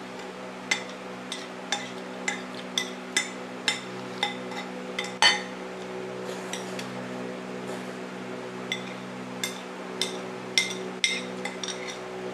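Metal spoon clinking against a ceramic plate while eating: a quick string of sharp clinks, the loudest a short clatter about five seconds in, then another run of clinks later, over a steady low hum.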